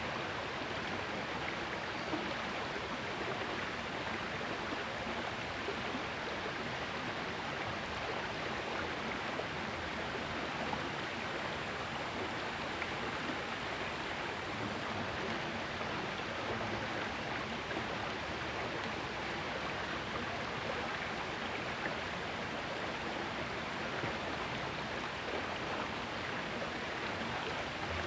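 Steady rushing of water flowing in a small river, an even noise without breaks.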